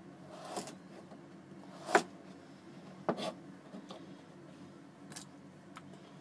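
Kitchen knife slicing burdock root on a plastic cutting board: a few separate knocks of the blade against the board, the loudest about two seconds in.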